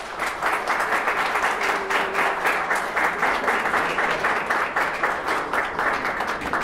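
Audience applauding steadily, many hands clapping in a dense patter.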